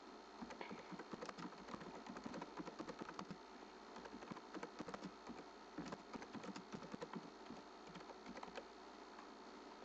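Typing on a computer keyboard: a quick run of key clicks that starts about half a second in and stops shortly before the end.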